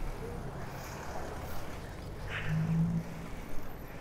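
Street noise heard from a moving bicycle: wind rush and the rumble of city traffic. A low hum swells briefly a little past halfway.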